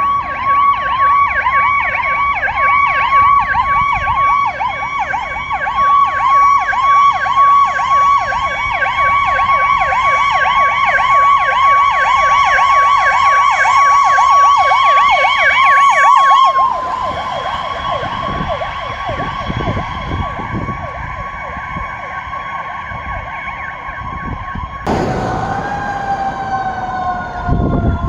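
Emergency vehicle sirens: a loud electronic siren warbling rapidly, several sweeps a second, cuts off about halfway through, leaving a quieter steady siren tone. Near the end a siren sounds again and slides slowly down in pitch as it winds down.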